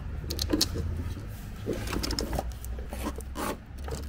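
Lubricated wiring loom being pushed by hand through a rubber firewall grommet, rubbing against the rubber in short, irregular strokes over a steady low hum.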